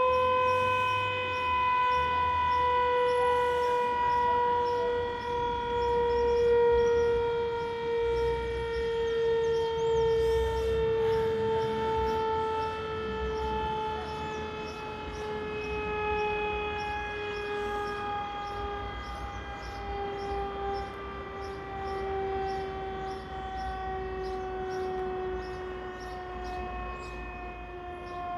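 A siren sounding one long, steady tone that sinks slowly and evenly in pitch.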